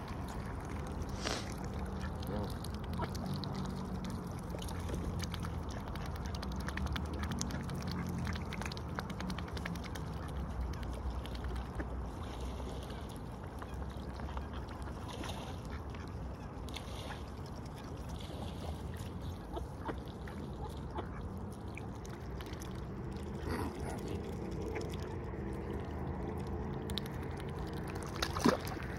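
A swan giving low, soft calls in runs, with scattered small clicks. A sharper click near the end is the loudest sound.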